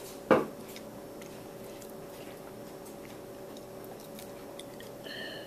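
A single sharp knock at the start, then a child quietly sipping and swallowing juice from a small glass jar, with faint small clicks over a steady low hum.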